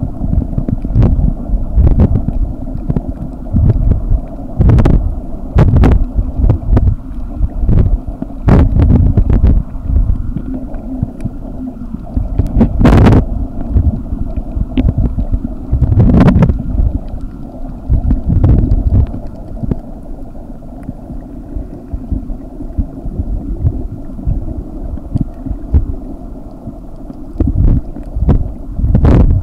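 Muffled underwater rumble and water sloshing picked up by a submerged camera, swelling and fading unevenly, with scattered sharp clicks and knocks.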